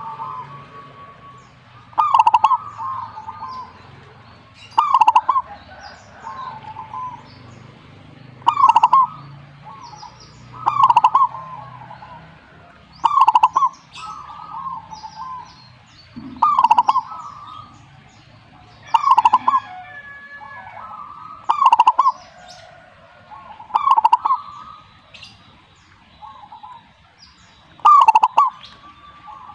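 Zebra dove (perkutut) cooing its song, one loud phrase repeated about every two to three seconds.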